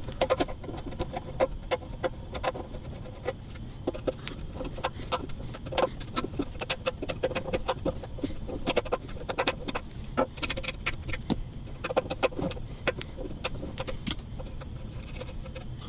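Irregular small clicks, taps and knocks of hands and small tools working at the neck joint of a steel-body resonator guitar, coming in scattered clusters.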